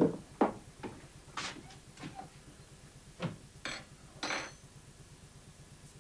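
A small glass medicine bottle and spoon being handled: a string of light clinks and knocks, the last two with a brief ringing.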